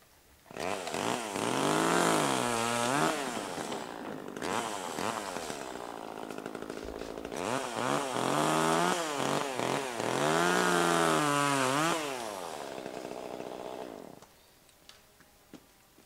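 Two-stroke chainsaw cutting pine limbs up in the tree, revved to full speed twice with lower running in between. The pitch sags and recovers as it bites, and it dies away about fourteen seconds in.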